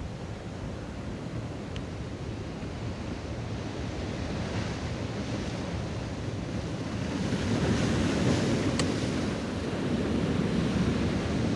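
Sea waves washing against a rocky shore, with wind buffeting the microphone; the surf swells louder about seven seconds in.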